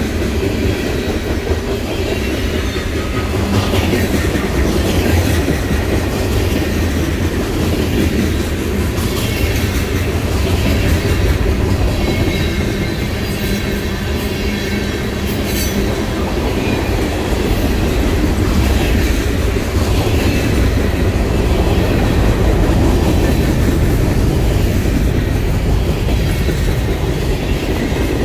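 Freight train cars rolling past: a steady heavy rumble with wheels clacking over the rail joints, and a faint, high metallic squeal from the wheels at times.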